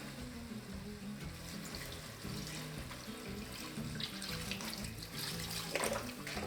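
Chicken stock being poured into a soup pot in a steady stream, over quiet background music.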